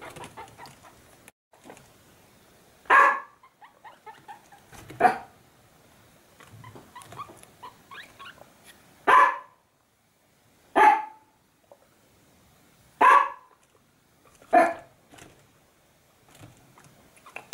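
A dog barking off and on, about six single barks a second or two apart.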